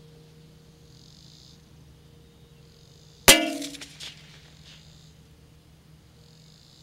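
A single .22 LR shot from a Savage MKII FVSR rifle: one sudden metallic clang about three seconds in that rings briefly and dies away in under a second.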